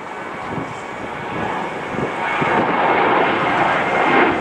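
Jet airliner taking off, its engine noise a wide rushing roar that grows steadily louder.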